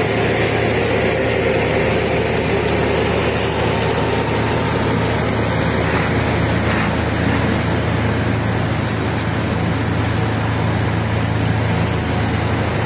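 Road roller engines running steadily as a pneumatic-tyred roller compacts fresh asphalt, a constant low hum with no pauses.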